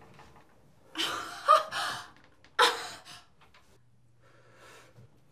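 A woman gasping in surprise, twice: a longer gasp with a brief voiced squeak in it, then a second sudden, sharp gasp about a second later.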